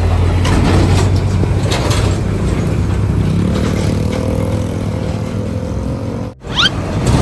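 Heavy vehicle's engine running with a deep steady hum, rising a little in pitch about three to four seconds in. Near the end the sound drops out for a moment and a short rising whistle follows.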